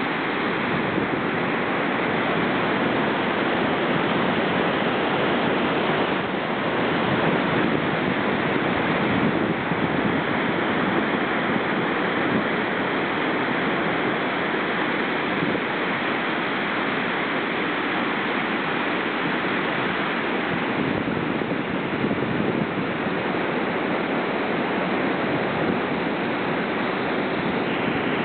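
Water rushing and churning through the open gates of a dam spillway: a steady, unbroken white-water rush.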